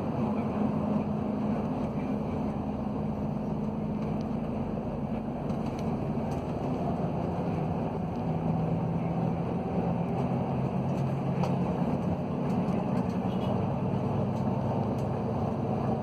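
Engine and road noise heard from inside a moving vehicle's cabin: a steady low drone whose engine note shifts down and back up in pitch as the vehicle changes speed.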